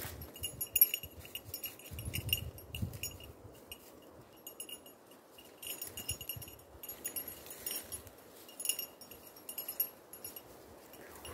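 A hunting dog's collar bell jingling on and off as the dog moves, with a few dull low thumps about two to three seconds in.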